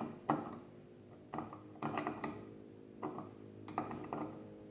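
A hand screwdriver backing screws out of a metal box lid: clusters of short clicks and scrapes about every half second to a second as the screwdriver is turned, over a faint steady hum.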